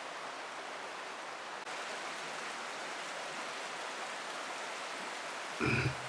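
Steady rush of the canyon's stream flowing over its rocky bed, an even hiss of water. A short louder burst comes near the end.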